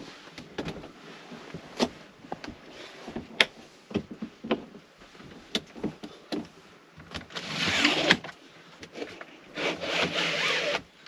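Handling noises: a scatter of sharp clicks and knocks, with two rasping slides of about a second each, roughly seven and ten seconds in.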